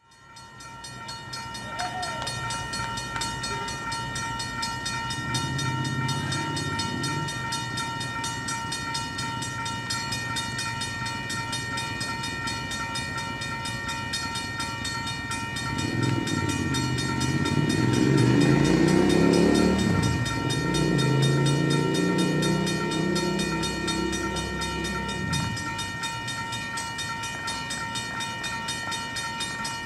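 A railroad grade-crossing bell rings steadily and rapidly throughout. An approaching Metra commuter train's locomotive horn sounds a short blast about five seconds in, then long blasts from about sixteen to twenty-five seconds, loudest around nineteen seconds.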